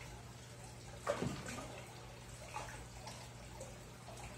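Tambatinga fish splashing and gulping at the water surface as they take feed pellets, with one loud splash about a second in and smaller ones after it. A low steady hum runs underneath.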